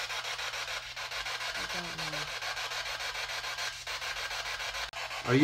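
Spirit box sweeping through radio stations: a steady hiss of choppy static with a short snatch of voice coming through about two seconds in.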